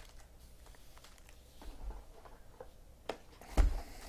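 Soft handling noises of trading-card packs and wrappers at a table: light clicks and rustles, a couple of sharp ticks, and a low thump about three and a half seconds in.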